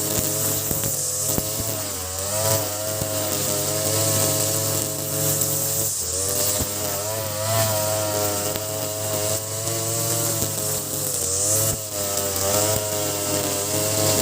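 Ogawa BG330 33cc two-stroke brush cutter, fitted with a larger 43cc carburettor, running at high revs while its trimmer line cuts grass. The engine note dips and recovers several times as the line takes load.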